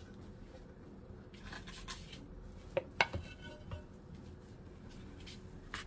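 Frying pan tipped over a plastic cutting board as a rolled egg omelette slides off it: a few light knocks and scrapes of the pan, the sharpest about three seconds in.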